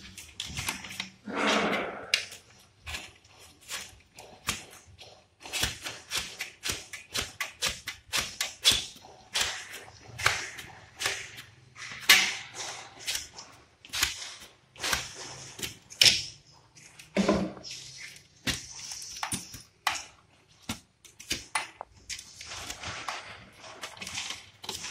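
Copper refrigerant pipe being flared with a hand flaring tool: a long run of irregular metallic clicks and taps as the pipe is clamped in the flaring bar and the cone's screw handle is turned.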